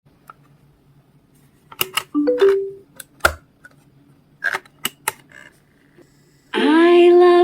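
Scattered button clicks with a short stepped electronic chime among them, then about a second before the end music starts playing from the DVD/CD player.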